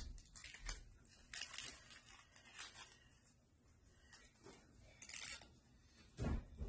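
Faint rustling and crinkling of small jewelry packaging being opened by hand in short scattered bursts, as a gold chain necklace is taken out, with a louder low handling noise near the end.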